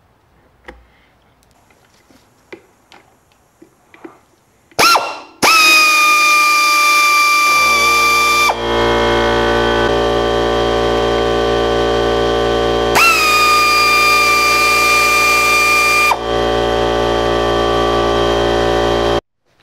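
Background music: sustained synthesizer tones that swoop in, joined a few seconds later by a low bass and chords, then cutting off abruptly near the end. Before the music starts there are a few faint clicks.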